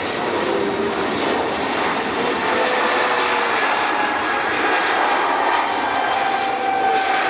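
Airliner engines running loudly and steadily: a dense rushing noise with a faint whine running through it.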